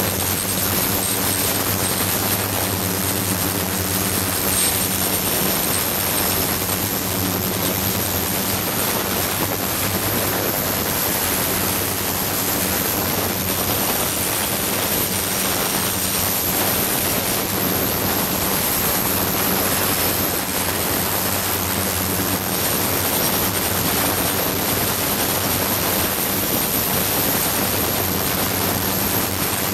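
Ultrasonic cleaning bath running with a glass vessel of powder suspension immersed, the water cavitating: a steady hiss with a low hum and a thin high whine.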